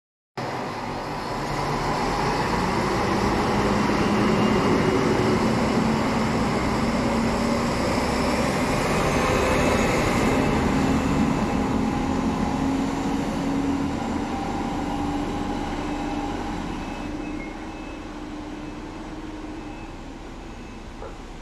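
Stadler Regio-Shuttle RS1 (class 650) diesel railcar pulling away and passing close by, its engine note slowly rising in pitch as it accelerates, then fading as it moves off down the line.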